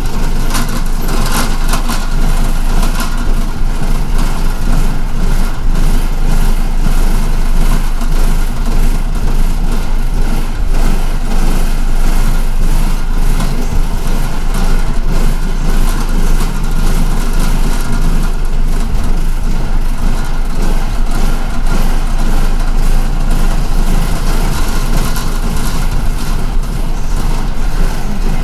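Steady engine drone and vehicle noise heard from inside an MTA city bus.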